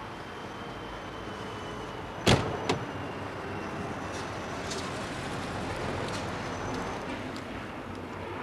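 A Citroën 2CV's door slammed shut about two seconds in, with a lighter second knock just after it, over steady street traffic noise. A few faint clicks follow.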